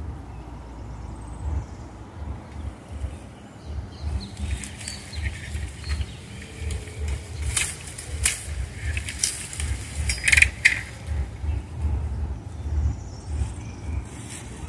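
A bamboo stalk being cut and pulled free from a dense clump: leaves rustling and a run of sharp cracks from the cane in the middle, over wind buffeting the microphone.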